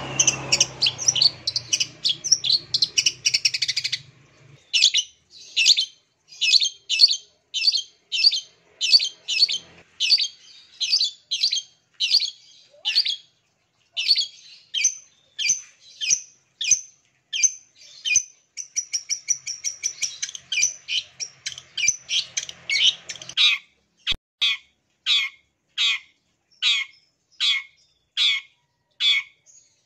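Long-tailed shrike (cendet) calling in a long run of sharp, harsh repeated notes, fast and crowded for the first few seconds, then evenly spaced at about two a second. Over the last few seconds each note ends in a downward sweep.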